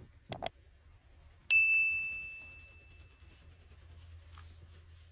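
Two quick mouse clicks, then one bright ding that rings and fades away over about two seconds: the click-and-bell sound effect of a subscribe-button animation.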